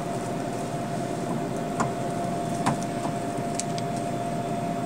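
A few short clicks about a second apart, typical of vending machine keypad buttons being pressed, over a steady electrical hum.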